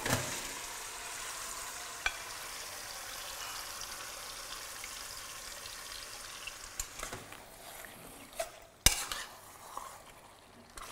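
Marinated mutton sizzling in hot oil in a pressure cooker, starting sharply as the meat goes in and dying down after about seven seconds. A few clicks of a spoon being stirred in the pot, with a sharp knock about nine seconds in.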